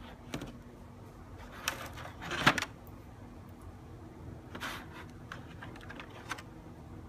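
Faint, scattered clicks and crinkles of a clear plastic egg carton being handled, with one louder rustle about two and a half seconds in and a run of small clicks near the end as a hand reaches in for an egg.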